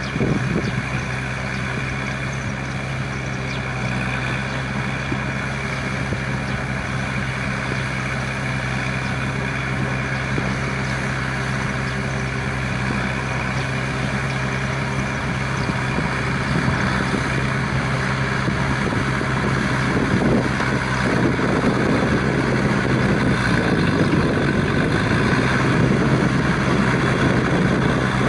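Four-cylinder diesel engine of a Shibaura V52F 52-horsepower four-wheel-drive tractor running steadily under load as it tills a wet rice paddy. The sound grows gradually louder, with more rumble and churning noise in the second half.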